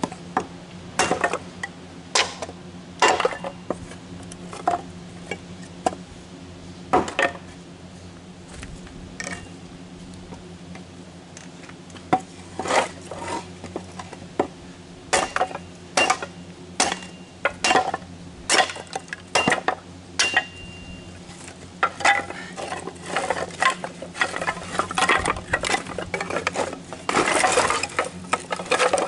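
A hatchet splitting kindling: sharp, irregular strikes about once a second, with split sticks clattering, coming thicker near the end.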